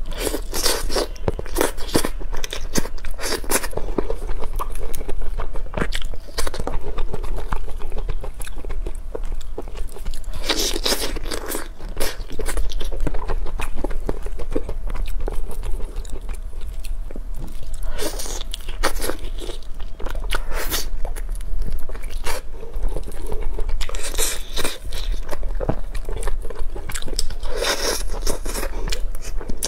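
A person eating sesame-topped glazed chicken wings: crunchy bites and chewing. Clusters of louder crackly bites come every several seconds, with quieter chewing between.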